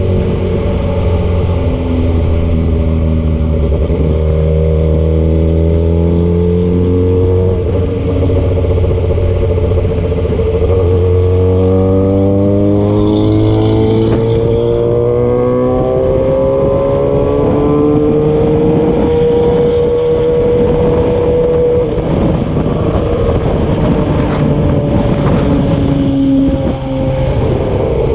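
Motor vehicle engine pulling through the gears on the road: its pitch climbs and drops back at each of several shifts in the first dozen seconds, then holds near steady at cruising speed before easing off about two-thirds of the way through.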